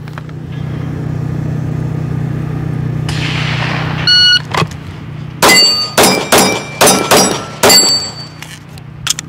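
A shot timer beeps, and about a second later a Glock 45 9mm pistol fires a rapid string of shots lasting roughly two and a half seconds.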